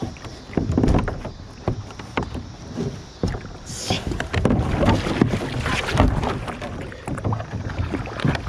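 A plastic kayak knocking and bumping against a dock, then a sudden splash about four seconds in as the paddler tips into the river, followed by a few seconds of churning, splashing water.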